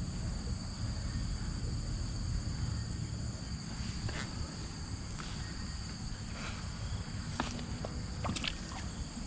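Insects trilling steadily at two high pitches over a low rumble, with a few light clicks and taps from about four seconds in.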